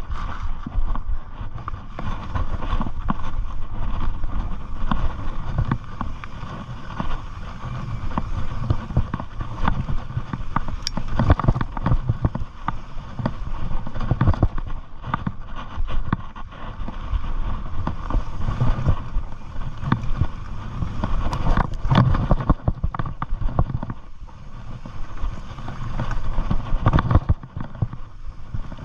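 Mountain bike riding down a rough dirt singletrack: tyres rolling over dirt and rocks, with many quick rattles and clicks from the bike. Steady wind noise on the microphone.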